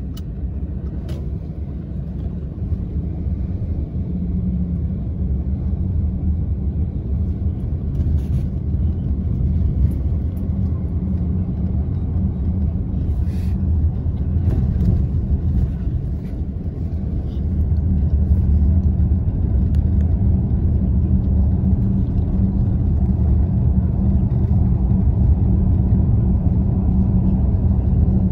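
Steady low rumble of a moving road vehicle heard from inside its cabin, with tyre hiss on a wet road; it grows louder about two-thirds of the way through.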